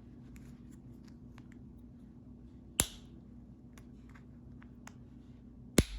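Small plastic parts of a Honda key fob and its repair kit being handled and fitted together, with faint light clicks and two sharp snaps about three seconds apart. The second snap comes near the end, as a piece seats into place.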